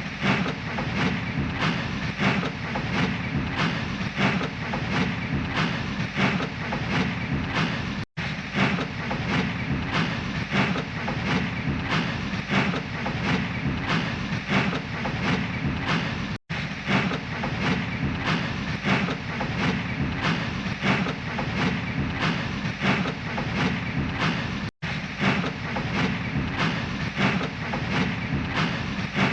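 Steam locomotive puffing slowly, its chuffs coming in a steady, even rhythm. The sound stops for a split second three times, about every eight seconds, where a loop restarts.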